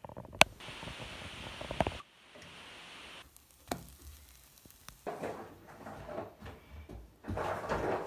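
Small kitchen sounds at a frying pan, cut together in short pieces. A steady hiss has a sharp click about half a second in, and there is another click near the middle. From about five seconds on, a fork knocks and scrapes against the pan and the pancakes as they are turned.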